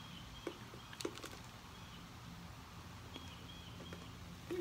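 Faint outdoor background with a bird chirping several times in short, high notes, and a few soft clicks.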